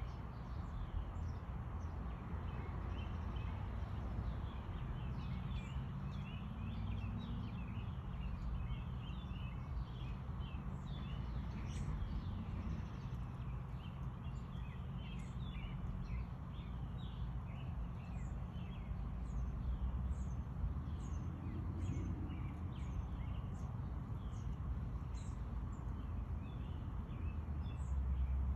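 Small backyard birds chirping, many short high calls coming thick and fast and overlapping, over a low steady rumble.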